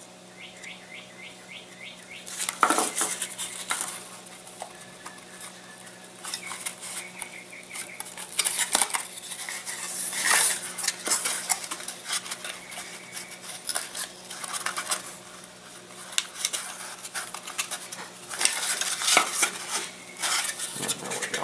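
Light laser-cut balsa and plywood model-aircraft parts clattering and clicking against each other and the table as they are handled and pressed together, in irregular spells of rattling.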